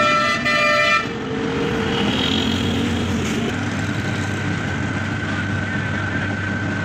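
A vehicle horn gives two short honks in the first second, over a steady mechanical drone of machinery and street traffic.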